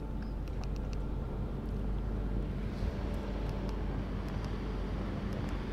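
Boat motor running steadily at trolling speed, a low even hum under wind and water noise, with a few faint clicks.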